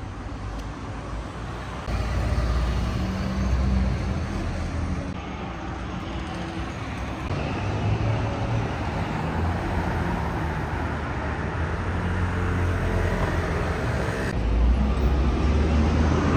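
City street traffic: cars driving by, with steady low engine rumble and tyre noise. The sound changes abruptly a few times.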